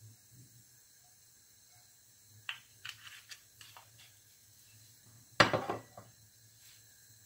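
Kitchenware being handled on a counter: a few light clicks and knocks, then about two-thirds of the way in a single louder clatter, over a low steady hum.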